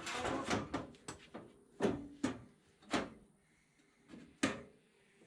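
Sheet-metal body parts of a VW T3 being fitted by hand: a scraping rattle in the first second, then several separate sharp metallic knocks with a short ring.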